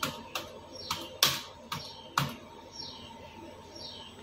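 Computer keyboard keystrokes, about six separate clicks in the first two seconds or so, as a patient name is typed in. Behind them a bird chirps repeatedly in short falling notes, over a faint steady hum.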